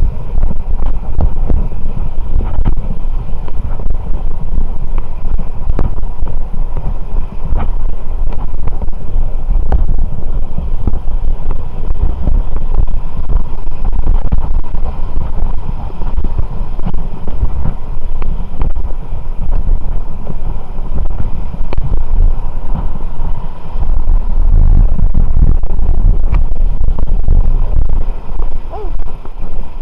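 Wind buffeting the microphone: a loud, continuous low rumble that gusts harder near the end.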